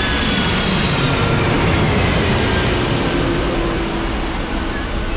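Twin-engine wide-body airliner passing low overhead on final approach with its landing gear down: a loud jet roar with an engine whine that slowly falls in pitch as it flies away, easing off after about three seconds.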